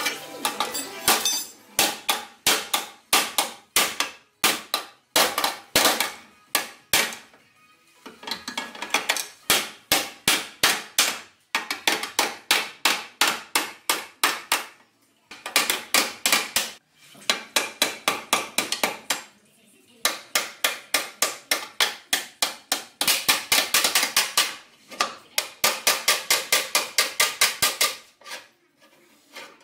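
Hammer blows on the steel front frame rail (longeron) of a Volvo S60, struck in quick runs of several sharp metallic hits a second with short pauses between runs: the bent rail being hammered straight.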